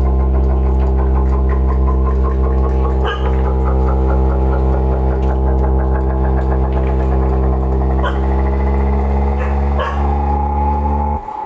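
Loud, deep distorted bass tone from a bass-test audio track, the 'grave' (bass) part after the midrange demo. It holds steady with a fast ticking texture above it, then cuts off suddenly just before the end.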